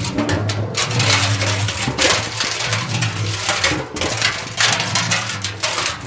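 Metal barrel being hit over and over: a dense, irregular run of clanging strikes over a low steady tone.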